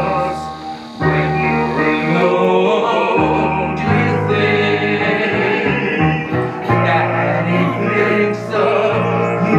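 Music: operatic singing with instrumental accompaniment, a little quieter for the first second.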